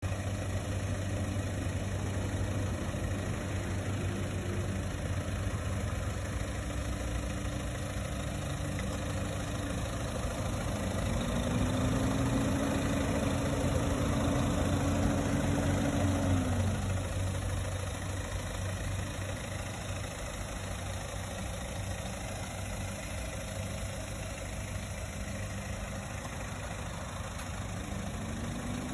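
Mazda 6 2.2 Skyactiv-D four-cylinder turbodiesel idling steadily. Midway, a higher hum rises, holds for several seconds and drops away.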